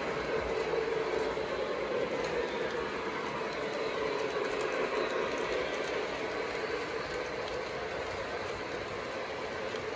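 O gauge model trains running on three-rail track, a steady rolling hum of motors and wheels that swells a little as a steam locomotive passes close by about four seconds in.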